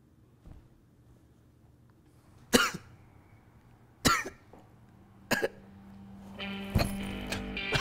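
A wounded man with a bleeding chest wound coughing harshly in pain, four separate coughs roughly a second apart. Soft guitar music comes in near the end.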